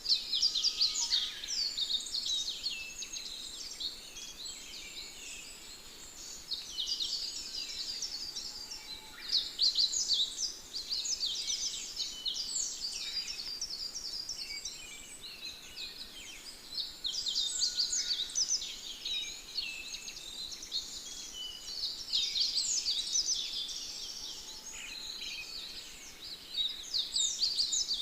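Busy chorus of small songbirds, many quick high chirps and twitters overlapping, growing busier and sparser by turns.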